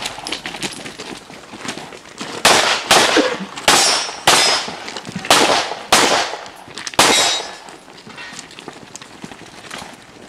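Pistol shots fired at a practical shooting stage: about half a dozen sharp cracks at uneven spacing, starting a couple of seconds in and ending about three seconds before the end.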